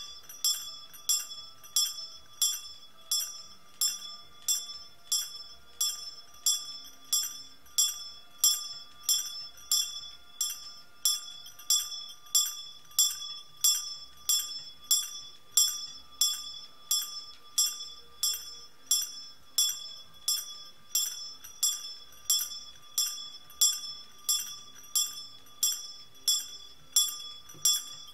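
A small bell struck steadily at about two strokes a second. Each stroke gives a bright, high ring that dies away quickly before the next.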